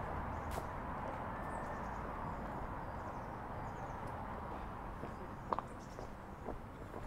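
Steady outdoor background hum, like distant city traffic, with faint high chirps of small birds. A sharp click comes about five and a half seconds in, then a few light footsteps on the path.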